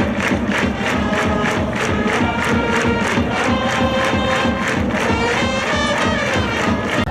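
Upbeat music with a fast, steady beat.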